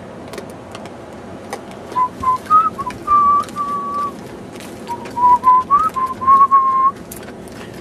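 A person whistling a tune: a string of clear short and held notes, starting about two seconds in. Scattered light clicks run underneath.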